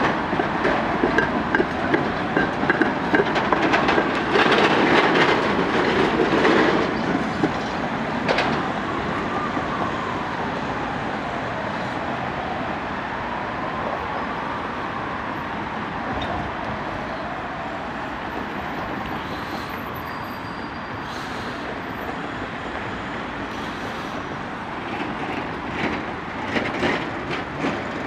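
A tram running on curved track: wheels clattering over rail joints and crossings for the first several seconds, with a wheel squeal that slowly rises and falls in pitch, then easing off over a steady bed of traffic noise; a short burst of clatter returns near the end.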